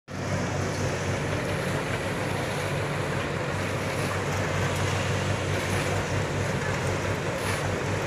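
Diesel engine of a JingGong JG100S wheeled excavator running steadily with a deep, even hum as the boom and bucket work.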